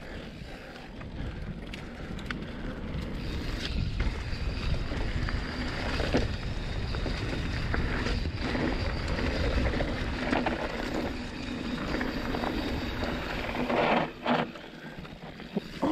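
Canyon Torque full-suspension mountain bike rolling downhill on a dirt forest trail: tyre rumble and wind buffeting the microphone, building as speed rises, with a few knocks and rattles as the bike hits bumps.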